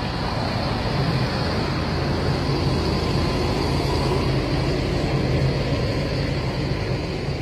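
Bus engine running in a steady low drone as the bus crawls slowly over rough, rocky ground.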